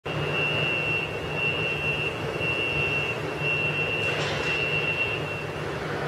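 Alstom R160A-1 subway train approaching through the tunnel: a steady low rumble and rush. Over it a high thin tone cuts in and out about once a second and dies away near the end, and there is a short hiss about four seconds in.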